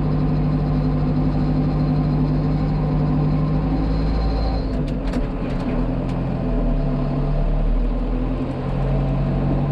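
Tractor engine running steadily under load, heard from inside the cab while pulling a heavy disc harrow through dry ploughed ground, with a few light clicks about five seconds in.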